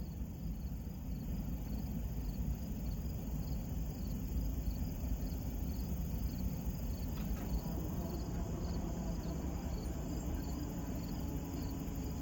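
Crickets chirping in an even, pulsing rhythm over a low, steady rumble from a freight train.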